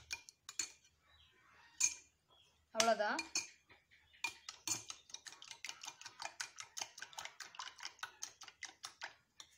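Egg, sugar and milk being beaten in a glass bowl with a metal utensil, which clinks quickly and rhythmically against the glass at about five strikes a second, pausing briefly about a second in. The beating goes on until the sugar dissolves.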